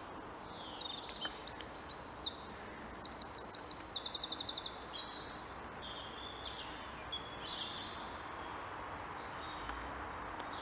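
Wild songbirds singing: varied high phrases and a fast trill of repeated notes in the first half, then sparser, softer calls, over a steady outdoor background hiss.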